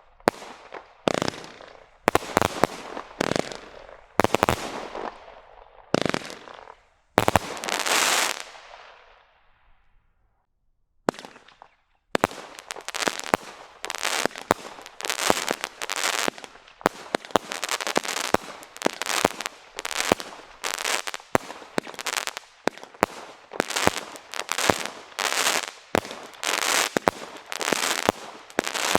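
Standard Fireworks 'After Party' multi-shot firework cake firing. At first the shots come about a second apart, then one burst trails off in a fading crackle and goes quiet for a moment. From about twelve seconds in the shots come in a rapid barrage, with crackling bursts overhead.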